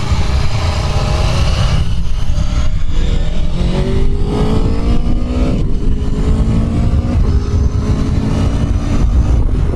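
Aprilia Tuono V4's V4 engine, on its stock exhaust, accelerating hard through the gears. The pitch climbs and drops back at each of about three upshifts, under heavy wind noise.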